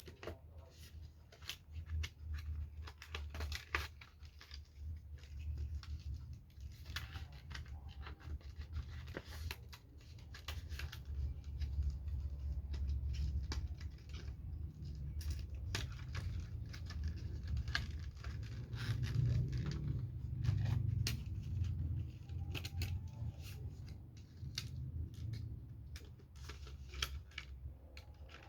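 A package being handled and opened by hand: scattered clicks, scraping and tearing sounds over a low rumble of handling noise.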